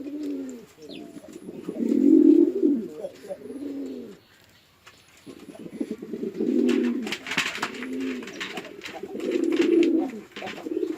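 Domestic pigeons cooing, one low rolling coo phrase after another with pitch swooping up and down, pausing briefly about four seconds in. A patch of sharp clattering clicks joins the cooing around the middle.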